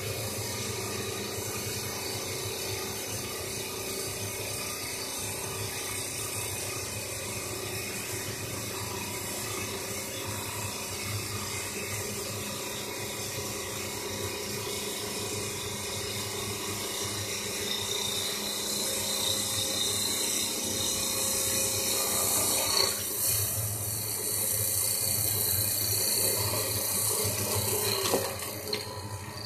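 CNC wood lathe turning a wooden vase blank: the cutter steadily shaving the spinning wood over the machine's running noise. The cutting gets louder about two-thirds of the way through and eases off near the end.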